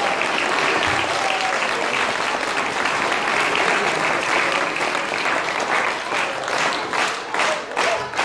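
Audience applauding. Near the end it turns into rhythmic clapping in unison, about three claps a second.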